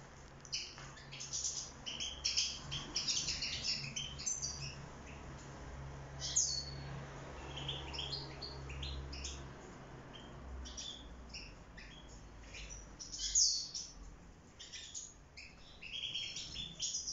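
A flock of European goldfinches chirping and twittering: many short, high calls overlap, with a few louder calls standing out about two and a half, six and thirteen seconds in.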